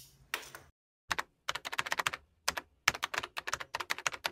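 Computer keyboard typing sound effect: a run of quick, sharp key clicks in uneven clusters, starting about a second in and going on for nearly four seconds, as the title text is typed out. A brief rustle comes just before it.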